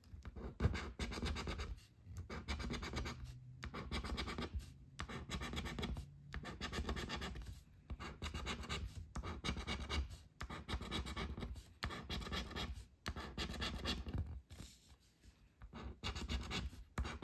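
A coin scraping the coating off a scratch-off lottery ticket, in runs of quick back-and-forth strokes broken by short pauses.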